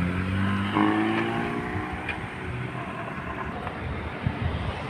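A passing car's engine accelerating, its pitch climbing steadily for about two seconds, then fading into steady road traffic noise.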